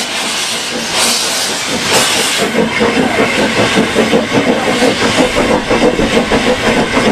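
Narrow-gauge steam locomotive pulling away: a loud hiss of escaping steam in the first two seconds or so, then a quick, even chuffing from the exhaust at about four beats a second as the train gets under way.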